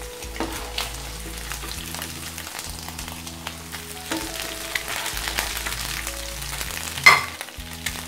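Coated chicken pieces sizzling in oil in a nonstick frying pan, with the scrape and clink of a spatula lifting pieces out. There is a sharper knock about seven seconds in.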